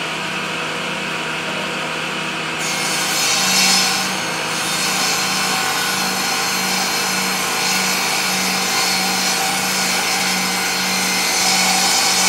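Table saw running with a steady motor hum, its blade cutting through a wooden board from about two and a half seconds in, a dense hiss that swells as the board is pushed through.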